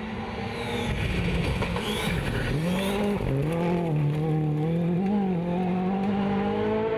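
Rally car engine running hard on a gravel stage. The revs drop sharply about two and a half seconds in, then pick up again and hold fairly steady.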